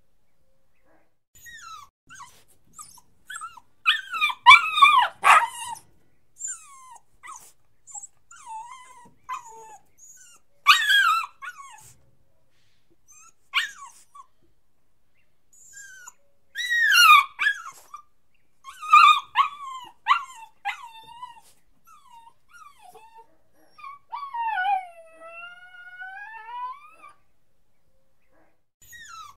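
A puppy crying: high, wavering whines and whimpers that slide up and down in pitch, broken by several louder clusters of yelping cries. Near the end comes one long whine that falls and then rises again.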